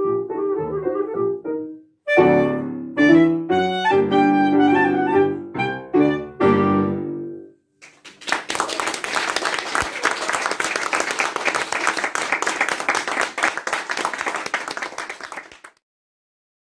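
Clarinet and grand piano playing the closing bars of a piece, with a brief pause about two seconds in and the music ending about seven seconds in. Audience applause follows and stops shortly before the end.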